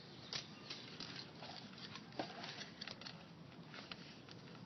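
Faint scattered light clicks and ticks of a plastic candy-kit tray and its packets being handled, with one sharper click about two seconds in.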